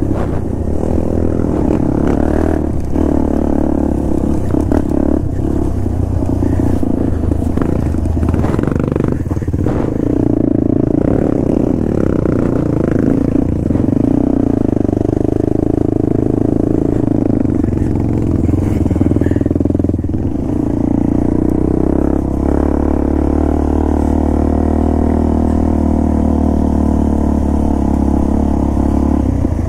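A vehicle engine running steadily while under way, its pitch rising and falling with the throttle.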